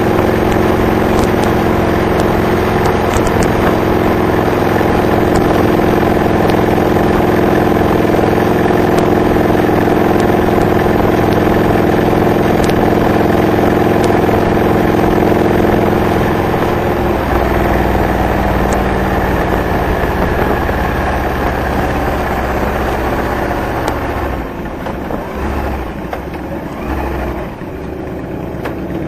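Honda VTX 1300R's V-twin running through Hard Krome K2 pipes with Michael's Resonators baffles, holding a steady cruise. About two-thirds of the way through the engine note drops and the sound eases off as the bike rolls off the throttle and slows.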